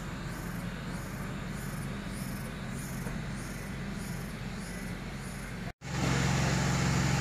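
Steady low hum of a standing train's idling engine, with insects chirping in a fast pulsing rhythm about twice a second above it. About two-thirds of the way through, the sound drops out for an instant and comes back louder, the hum stronger.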